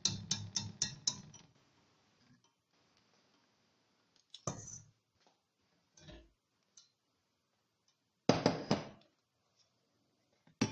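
Clinks and knocks of kitchen cookware and glass being handled: a quick run of clicks in the first second or so, then a few separate short knocks and clinks, the loudest near the end.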